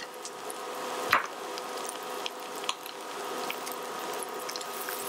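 Fat sizzling and crackling in a hot heavy-bottomed fry pan as a pan sauce is started, with one sharp knock about a second in and a faint steady hum underneath.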